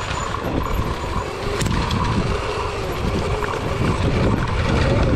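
Dirt bike ridden along a rutted dirt trail, its motor's pitch rising and falling with the throttle over a steady low rumble.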